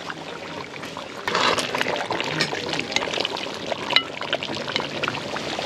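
Pot of curry chicken bubbling hard, a wet, crackling boil that gets louder about a second in, as the gravy is cooked down.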